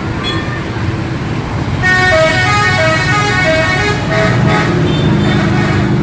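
Tour bus 'telolet' musical air horn playing a quick tune of short stepped notes, starting about two seconds in, over road traffic noise. Then a lower, steady drone takes over toward the end.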